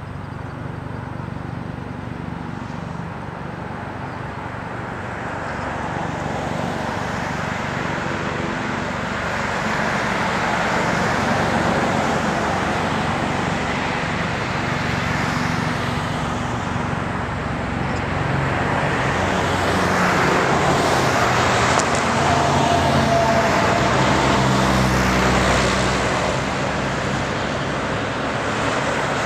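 Street traffic: the steady rush and engine hum of passing road vehicles, heavy trucks among them. It swells twice, first about a third of the way in and again for several seconds past the middle, then eases off near the end.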